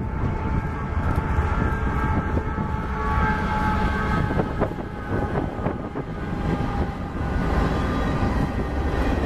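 A CSX freight train passing close by: the lead diesel locomotives rumble past, then boxcars roll by with a clatter of wheels on rail joints. Several steady high tones sound together over the rumble through the first half.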